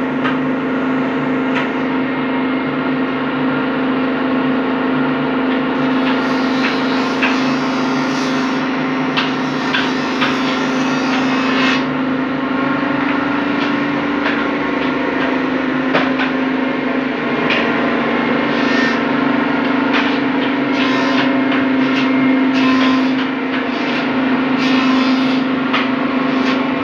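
Furniture-workshop noise: a machine hums steadily throughout, with scattered hammer knocks on wood that come thickest about a quarter of the way in and again through the second half.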